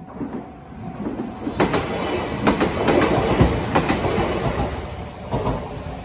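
Kintetsu Yoshino Line electric train passing over a level crossing, swelling and then fading away, with a few sharp wheel clicks over the rail joints.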